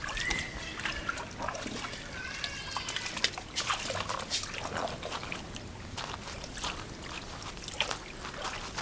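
A Rottweiler splashing and pawing in the shallow water of an inflatable paddling pool: a string of irregular splashes and drips.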